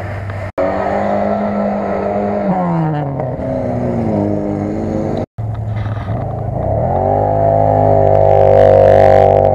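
Off-road vehicle engines under load, heard across edited shots. In the middle shot a Lada Niva's engine holds a steady high rev and then drops away. After a cut, an ATV engine revs up and holds high revs, with a hiss over it near the end.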